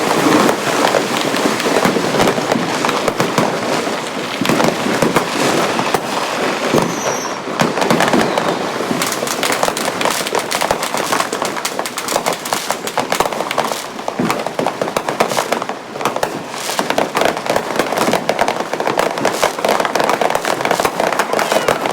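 Many firecrackers and fireworks going off at once: a dense, continuous barrage of cracks and pops, easing slightly about two-thirds of the way through before picking up again.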